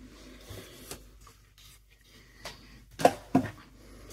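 Fabric being handled on a sewing machine bed: soft rustling and scraping, then two light knocks about three seconds in, a third of a second apart. The machine is not running.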